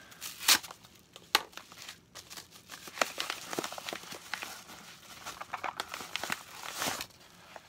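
A yellow padded paper mailer being torn open and handled: two sharp rips near the start, then a few seconds of steady crinkling and rustling of the paper envelope.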